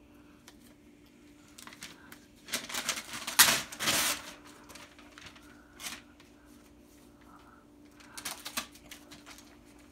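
Wrapping paper being ripped off a gift box in quick crackling tears, the loudest burst about three to four seconds in, a short rip near six seconds and more tearing around eight seconds.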